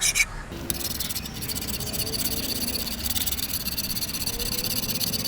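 Hand file rasping on the steel blade edge of grass shears. After a short pause just after the start, it runs as quick, short strokes that blend into a continuous scraping.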